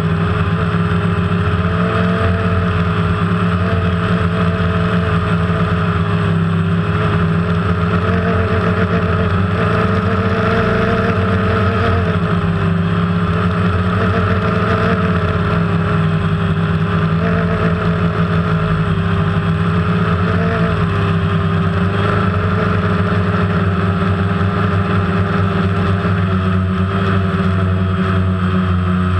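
DJI Phantom quadcopter's electric motors and propellers buzzing steadily in flight, heard close up from the camera mounted on it; the pitch wavers slightly up and down as the motors adjust.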